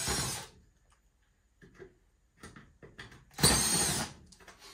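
Cordless drill-driver whirring in two short bursts, briefly at the start and again about three and a half seconds in, backing screws out of a metal cover plate. A few light clicks come in between.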